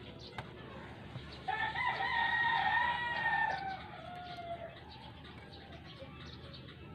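A rooster crowing once: one long call starting about a second and a half in, held for about three seconds and trailing off downward at the end.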